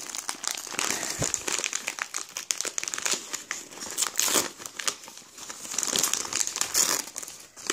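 Glossy gift-wrapping paper being crinkled and pulled open by hand, a dense run of irregular crackling rustles.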